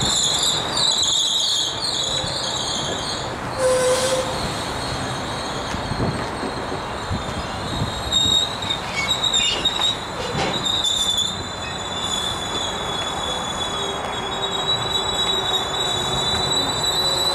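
GO Transit bilevel passenger coaches rolling past close by, their wheels squealing high and shrill, stuttering at first and then held steady through the second half. Under it runs the rumble of the wheels on the rails, with a couple of sharp knocks.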